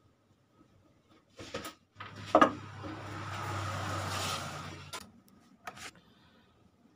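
Sheet-metal top cover of a power amplifier being lifted and slid off its chassis. First a few knocks, then a sharp knock, then about three seconds of scraping and rubbing, and a few light taps near the end.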